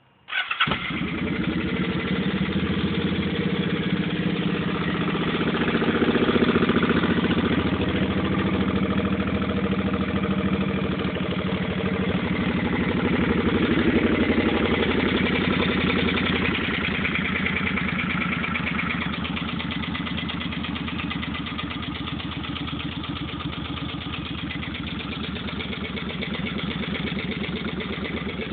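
2005 Suzuki Boulevard C50's 805 cc V-twin engine starting a fraction of a second in, then idling steadily, swelling a little in loudness twice. The engine makes a tapping noise that the new owner cannot account for.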